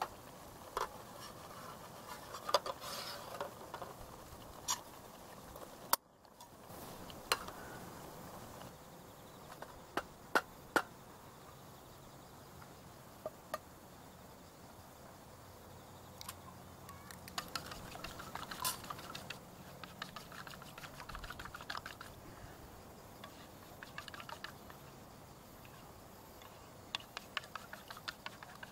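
Campfire wood crackling: irregular sharp pops and clicks over a faint steady hiss, with clusters of quick crackles near the middle and near the end.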